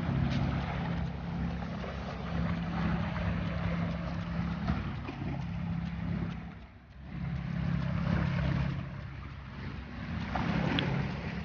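A boat engine running at a steady drone, with wind and water noise over it. The engine sound drops away briefly about seven seconds in, then comes back.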